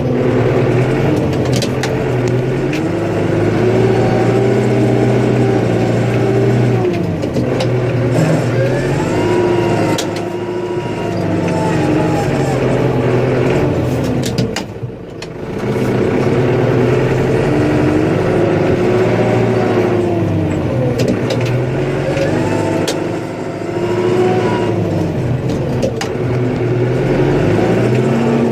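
Engine of a snow-plowing vehicle running under load, its pitch rising and falling again and again as it revs up and eases off, with a short drop in level about halfway through.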